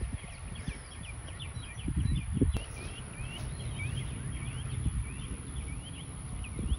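Birds chirping in quick short calls over a steady high whine, with low rumbling thuds from the phone being carried and handled and a heavier cluster of thuds about two seconds in.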